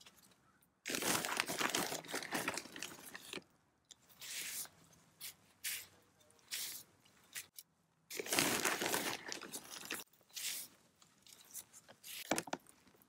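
Gloved hands digging into and scooping potting soil in a terracotta pot: crunching and rustling in uneven bursts, with two longer scoops about a second in and about eight seconds in.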